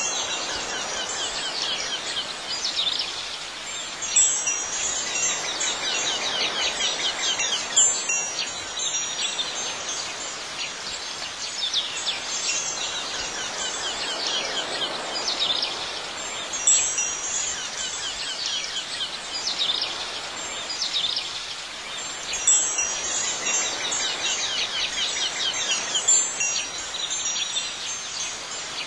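Wind chimes ringing in clusters every few seconds over a steady background of outdoor chirping.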